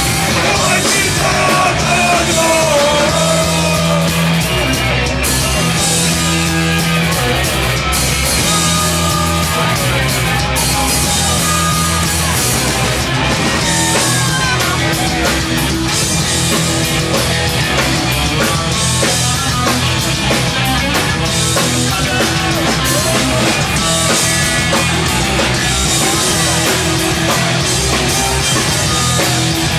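Punk rock band playing live: loud, continuous electric guitar, bass and drums.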